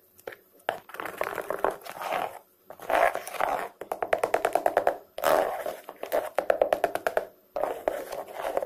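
A metal ladle stirs thick, yeast-risen bika ambon batter in an aluminium pot with irregular wet, squelching strokes. Some strokes break into quick crackling runs as air bubbles in the fermented batter burst. The batter is being stirred down after its hour-long rise.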